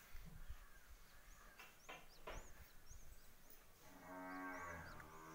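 Faint high chirps near the middle, then a cow mooing in the background from about four seconds in: one long, low call.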